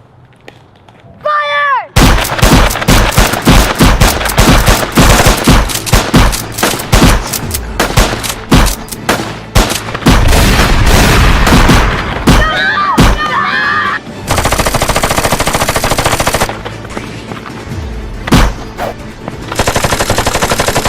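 Rapid bursts of automatic gunfire, many shots a second, after a short yell about a second in. The fire comes in long continuous runs near the middle and again near the end.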